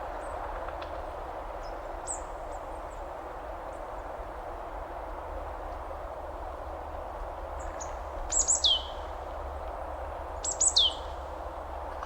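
Steady rushing of a waterfall, with a bird calling over it: faint high chirps, then twice a loud cluster of sharp high calls that sweep downward, about two seconds apart, near the end.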